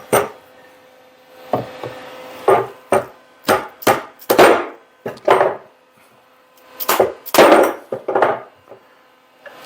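About a dozen irregular sharp metal knocks and clanks, some ringing briefly, as hand tools strike and handle parts of a Delta drill press spindle assembly being taken apart.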